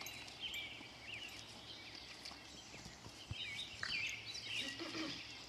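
Several small birds chirping, with many short high calls overlapping over a low, steady background hiss.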